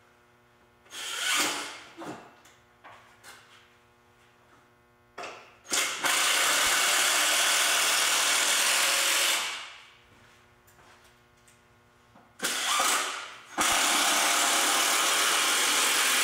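Cordless impact driver sinking long wood screws into a 2x4 frame: short starting bursts, then two long steady runs of about four and three seconds as the screws are driven home.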